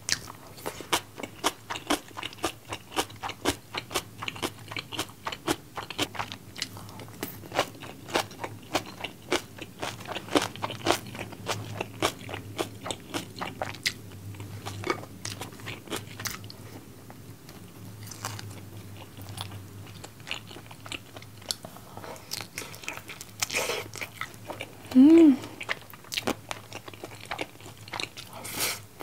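Close-up chewing of seasoned fried chicken with rice: rapid crunching and wet mouth clicks, two to three a second, thinning out after the middle. Near the end one short hum from the eater is the loudest sound.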